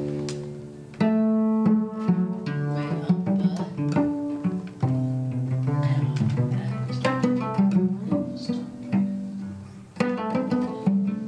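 Solo cello played pizzicato: plucked notes and chords, each struck sharply and left to ring and fade, with a fresh flurry of plucked notes about ten seconds in.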